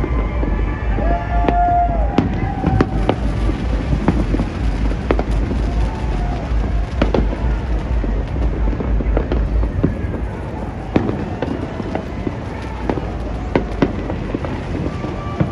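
Fireworks going off all over a city at once: a dense, continuous run of bangs and crackling pops over a constant rumble, thinning slightly about ten seconds in.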